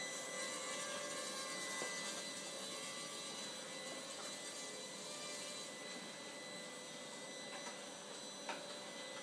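Walkera QR Ladybird V2 micro quadcopter's motors and propellers running in flight: a steady high whine over a hiss, growing slightly fainter in the second half.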